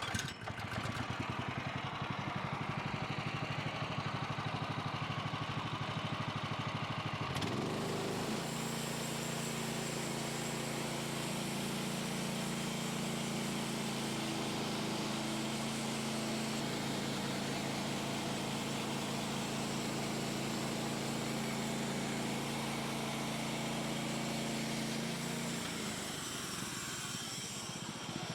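Engine running, revved up about eight seconds in and held at a steady higher speed, then throttled back near the end.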